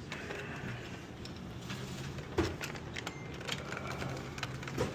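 Steady low hum of a vending machine running, with scattered light clicks and taps from the jammed coin mechanism being handled, and a sharper knock about two and a half seconds in.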